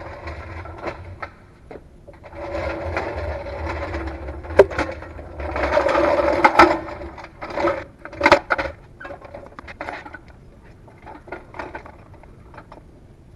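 Tool work on a car's differential during removal: a small motor runs in several stretches, with scattered clicks and knocks, the loudest a sharp knock about four and a half seconds in. It is quieter in the last few seconds.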